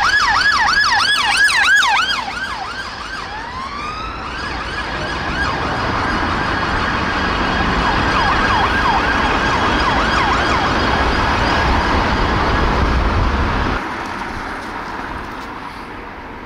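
Siren of a UK ambulance rapid-response car, a Skoda Octavia, sounding a fast yelp for about two seconds, then a slower rising wail. The siren then goes on quieter and further off over traffic noise, and stops near the end, leaving only quieter street background.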